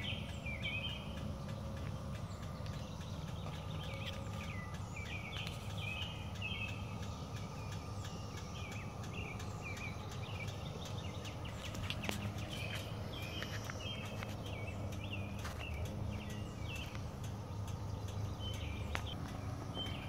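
Birds singing short repeated chirpy phrases over the faint, steady drone of a periodical cicada chorus, with a low rumble underneath.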